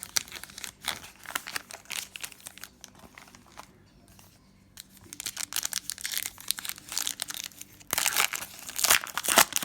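Crinkling and rustling as trading-card packs and cards are handled, in quick, irregular scratchy bursts. There is a short lull about four seconds in, and the loudest stretch comes near the end.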